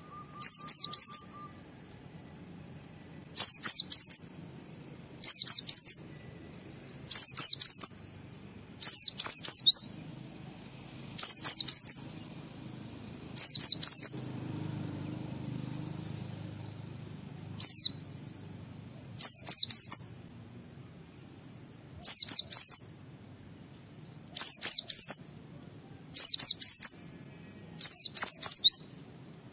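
White-eye (pleci) singing in short bursts of rapid, high chirps, each about a second long and repeating roughly every two seconds, with a longer pause near the middle, over a faint low hum.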